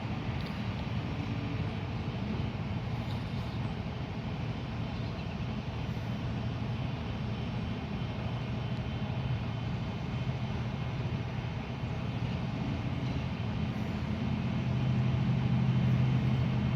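Heavy diesel engine running steadily with a low drone, growing louder near the end.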